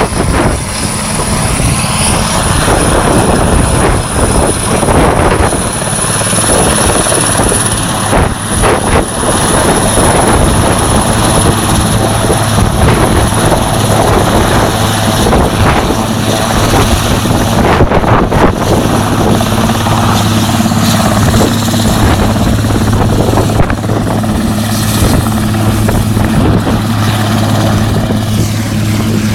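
Helicopter's rotor and engine running loud and close, with a steady high whine throughout and a low hum that grows stronger and more even from about ten seconds in, as the helicopter spins round in flight before landing.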